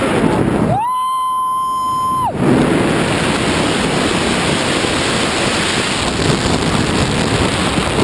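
Wind rushing over the camera microphone during a tandem skydive, a loud steady noise. About a second in, it is cut by a steady electronic beep about a second and a half long, and the wind noise drops out completely while the beep sounds.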